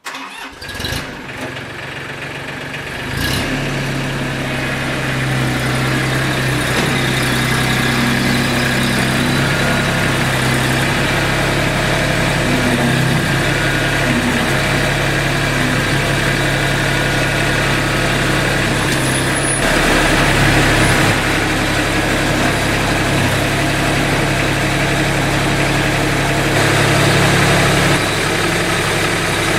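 A vehicle engine running steadily at idle, building up over the first few seconds.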